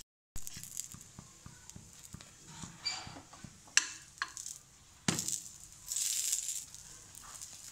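Methi paratha sizzling on a hot tawa while a steel spoon scrapes and presses on it, with a few sharp clicks of the spoon against the pan near the middle and a louder swell of sizzling about five seconds in.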